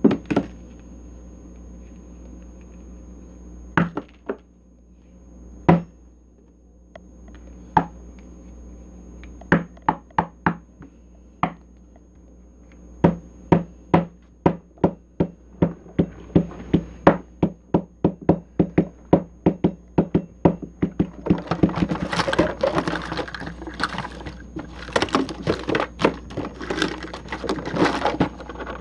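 Wooden mallet pounding Play-Doh on a tabletop. A few separate knocks come first, then a steady run of strikes about two a second from about ten seconds in. The strikes grow faster and denser near the end.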